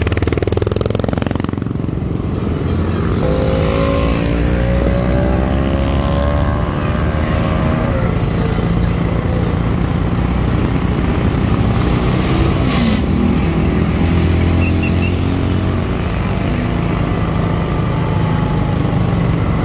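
An engine running, its pitch rising and falling as the throttle opens and closes, over a steady low drone.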